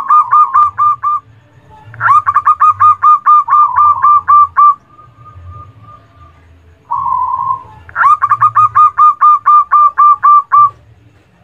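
Zebra dove (perkutut) calling in three bouts of quick, evenly spaced cooing notes, roughly four or five notes a second. A short, lower warbling coo comes just before the last bout.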